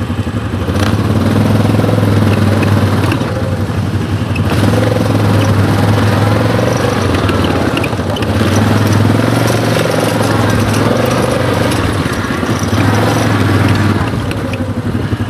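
ATV engine running, its sound swelling and easing several times.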